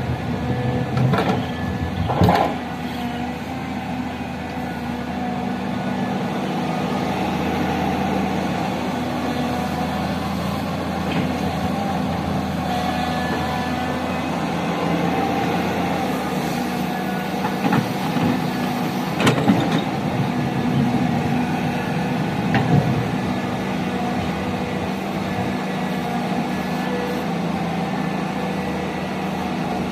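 Excavator's diesel engine running steadily, with a few sharp knocks, about two seconds in and twice more past the middle.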